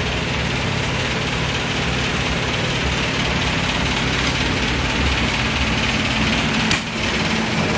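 Steady machine drone, a low hum under a constant hiss, with one short click near the end.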